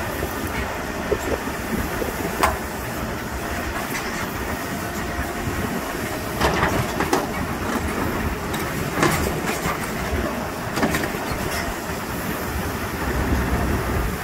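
Hidromek 102S backhoe loader running with a steady diesel rumble, with sharp metallic clanks every few seconds.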